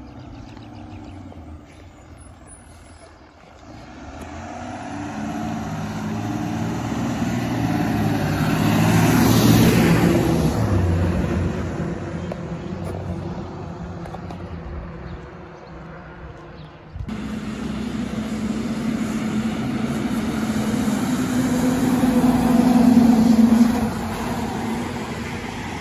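School bus diesel engine heard from inside the cabin, pulling hard as the bus accelerates, then easing off. After a sudden cut it builds again, louder, and drops off sharply near the end.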